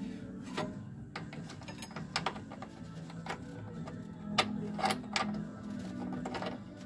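Irregular clicks and light plastic knocks as a metal bulb socket is pushed and twisted into the back of a 1968 Camaro's plastic instrument cluster housing. The two loudest clicks come a little past the middle.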